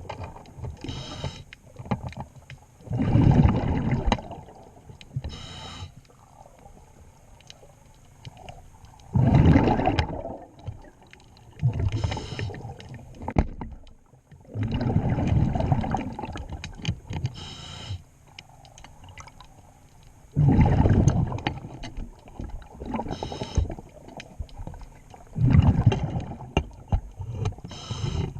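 A diver breathing through a regulator underwater: a loud rush of exhaled bubbles about every five to six seconds, with shorter hissing inhalations between them.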